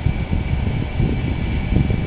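Hitachi crawler excavator's diesel engine running, a steady low rumble with a faint steady high whine above it.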